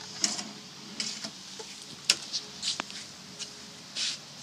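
Several sharp clicks and light knocks, about five in four seconds, from handling a cabinet drawer and its soft-close glide hardware.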